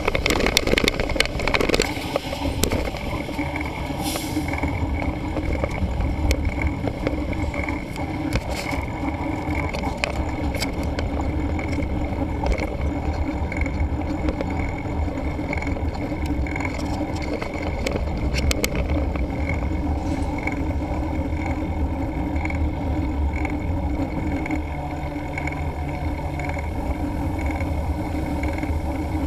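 A mountain bike rolling along a road, with steady wind and tyre rumble. There are a few sharp rattles in the first couple of seconds and again a few times later, and a faint high tick about once a second.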